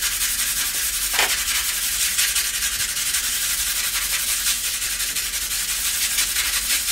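Steel knife blade stroked quickly and repeatedly across 600-grit wet-or-dry sandpaper, a steady scratchy rasp made of rapid, even strokes: a quick touch-up of the edge on fine grit.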